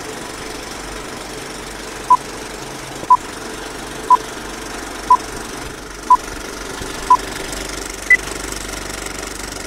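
Film countdown leader sound effect: a film projector running with a steady clatter, and a short beep once a second, six at the same pitch, then a seventh, higher beep near the end.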